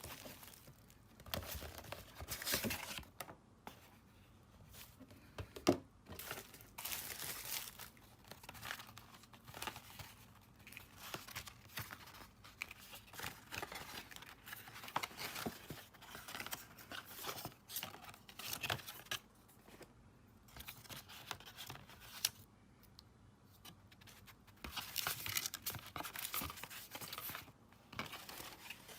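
Packaging being opened by hand: irregular tearing and crinkling of wrapping, with one sharp click about six seconds in.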